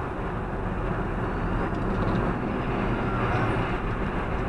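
Steady road and engine noise of a car driving at speed, heard from inside its cabin: an even rumble and tyre hiss with no sudden events.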